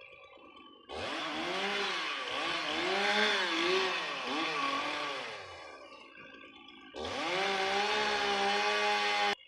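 Small two-stroke engine, most likely a chainsaw, revving up and down unevenly for several seconds, easing off, then held at high revs and cut off abruptly near the end.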